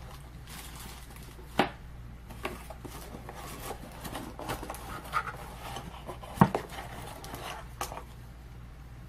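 Hands handling small camera accessories and their packaging: light rustling and scattered small clicks. The two sharpest knocks come about one and a half seconds in and about six and a half seconds in.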